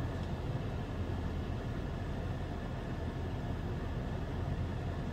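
Steady low rumble of a car heard from inside the cabin, with no distinct events.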